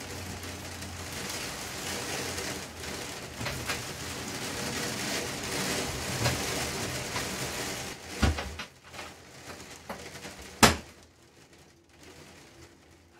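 A steady hiss for the first eight seconds, then two sharp knocks, the second the louder, as a hardback book is put down beside a bathtub. Bathwater sloshes lightly between the knocks as the bather shifts.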